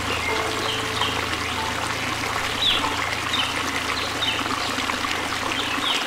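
Waterfall and stream rapids rushing steadily over rocks, with short high bird chirps scattered throughout. Soft background music with a low drone and a few held notes plays underneath.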